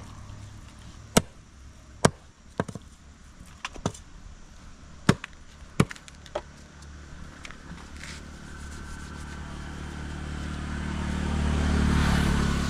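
A fish-cutting knife chopping through a rohu carp on a cutting block: about nine sharp, irregular chops over the first six seconds. Then a passing motor vehicle's engine grows louder toward the end.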